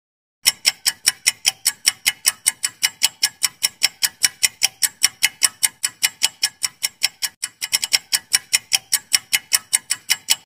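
Ticking clock sound effect for a quiz countdown timer: fast, even ticks at about five a second, starting about half a second in, with a brief stumble in the rhythm around two-thirds of the way through.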